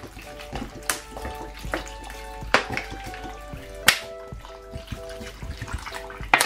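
Water poured from a plastic bottle into a pot of raw chopped vegetables, with a few sharp clicks, over background music playing a simple melody.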